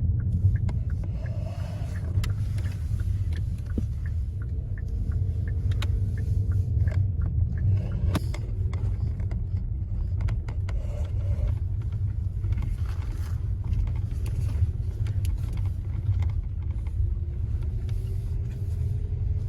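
Steady low rumble of a car driving on the road, heard from inside the cabin: engine and tyre noise with a few faint clicks and rattles.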